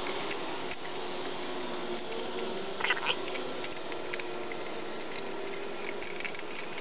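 Light scattered clicks and scrapes of hand work on a small engine's overhead-valve cylinder head and rocker arms, over a steady outdoor background hiss, with two brief chirps about three seconds in.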